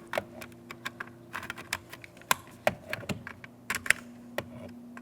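Small plastic electrical connectors being handled and snapped together: a run of irregular light clicks and taps.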